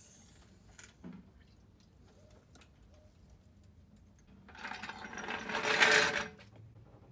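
Hydraulic floor jack being let down, with faint clicks and a knock about a second in, then about four and a half seconds in its wheels rattle as they roll across the concrete floor for under two seconds while it is pulled out from under the car.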